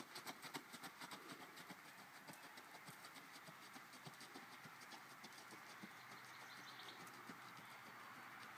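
Rapid hoofbeats of an Icelandic horse ridden at speed on a dirt track. They fade over the first couple of seconds as the horse moves away, then go on faintly.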